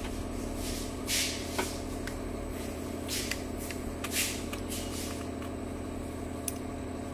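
Steady electrical hum, with a few short scrapes and taps as a metal probe prods magnetorheological fluid held stiff by the magnetic field in a glass cell.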